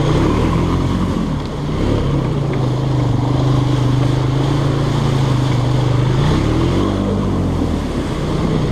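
Small off-road vehicle engine running as it wades through deep creek water. The pitch dips and recovers about a second in and again near the end, with water noise underneath.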